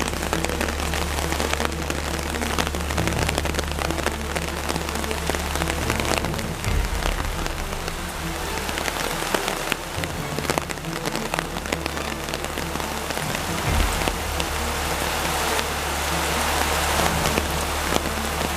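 Steady rain falling, with many small sharp taps of drops striking close to the microphone, over a constant low hum.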